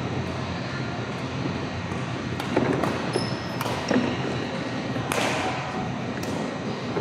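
Badminton rally: rackets striking the shuttlecock with a few sharp cracks in the second half, and short high squeaks of shoes on the court floor, over steady hall noise.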